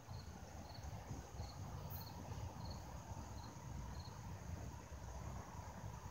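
Faint insect chirping: short high chirps at an even pace of about two a second, stopping about four seconds in, over a low steady rumble.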